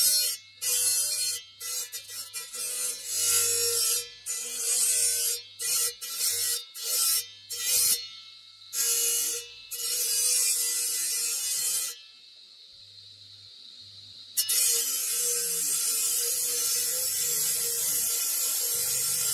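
A motor-driven circular stone-cutting disc grinds through a hand-held block of onyx marble, with a steady whine under the cutting noise. It makes a string of short cuts, falls quieter for about two seconds, then makes one long continuous cut that stops just at the end.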